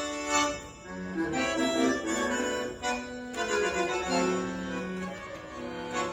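Accordion-type free-reed instrument playing a tune in held, sustained notes.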